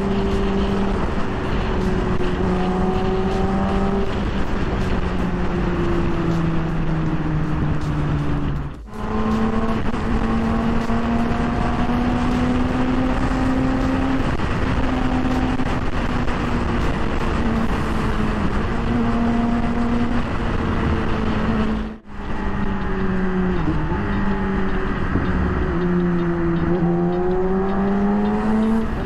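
Yamaha R6 inline-four engine running through an Akrapovic full exhaust at highway speed, over a steady rush of wind. The engine note drifts up and down with the throttle and climbs near the end as the bike accelerates. The sound briefly drops out twice, about 9 and 22 seconds in.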